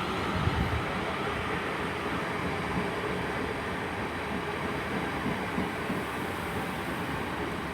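Class 450 Desiro third-rail electric multiple unit pulling out of the station, a steady rumble of the train's wheels and running gear on the track, with a few low thumps right at the start.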